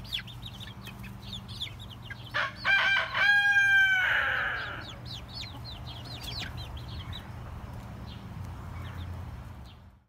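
A rooster crows once, loud, from about two and a half seconds in for about two seconds, its call falling away at the end. Around it the flock keeps up a steady run of short, high, falling chirps as the birds settle on the roost for the night.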